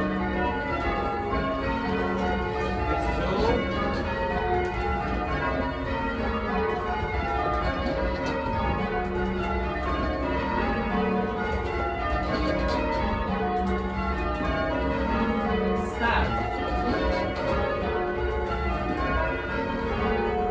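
Ring of eight church bells, mostly Taylor-cast, tenor about 14 cwt and tuned to F#, being change-rung in a steady stream of strokes, the bells overlapping as they ring on.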